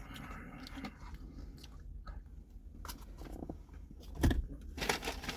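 A person chewing and biting food, with small mouth clicks and crackles over a low steady hum and a heavier thump about four seconds in.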